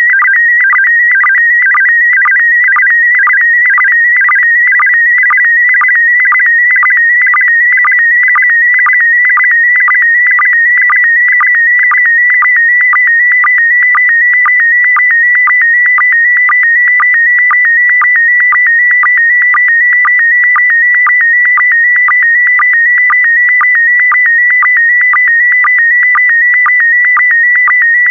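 Slow-scan TV (SSTV) image signal in PD120 mode: a loud, warbling electronic tone wavering just below 2 kHz, broken by short low blips about twice a second, which are the line-sync pulses between scan lines.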